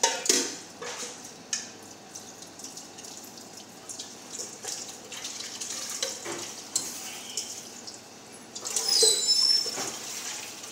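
Tap water running onto a metal cooking pot in a stainless steel sink as the pot is rinsed and scrubbed, with a few sharp clanks of the pot near the start and a louder rush of water about nine seconds in.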